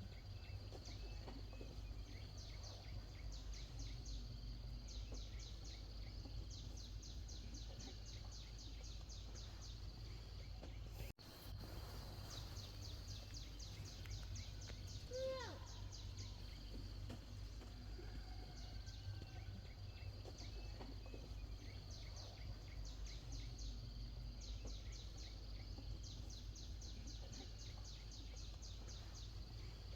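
Outdoor rural ambience: rapid high-pitched chirping in repeated trains, over a steady low rumble. One short falling call sounds about halfway through.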